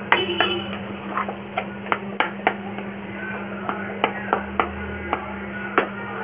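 Spatula tapping and scraping against a frying pan while stirring scrambled egg through grated carrot, with sharp irregular taps two or three times a second. A steady low hum runs underneath.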